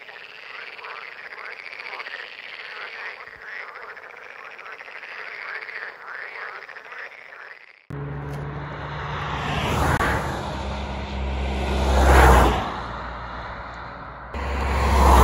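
A chorus of frogs calling, many short croaking calls overlapping, cuts off abruptly about halfway through. Then cars pass by on a road one after another, each swelling and fading over a low rumble, three passes in all, the middle one the loudest.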